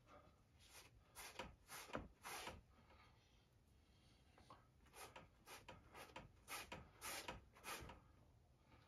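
Faint strokes of a gloved hand rubbing acrylic paint across a stretched canvas: a run of short soft swishes, pausing for about two seconds a little before the middle.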